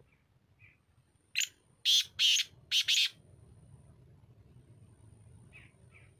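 Caged francolin (teetar) calling: four loud, harsh notes in a quick run about a second and a half in, with a few faint short chirps before and after.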